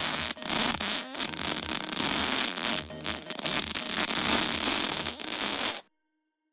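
A long, noisy fart sound effect with a faint low pulsing under it, cutting off abruptly near the end.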